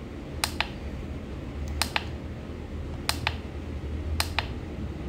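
Plastic mode button on a Verilux battery charger pressed four times, each press a sharp double click as it goes down and comes back up, cycling the charger through its modes. A steady low hum runs underneath.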